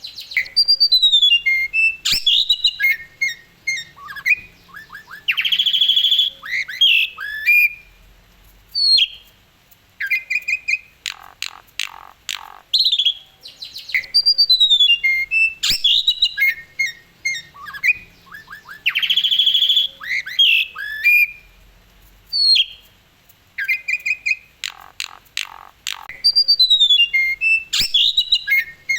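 Asian pied starling (jalak suren) singing at full volume, a loud, varied song of whistles, rising and falling notes, rapid trills and harsh chattering squawks. The same run of phrases comes round again about every 13 to 14 seconds.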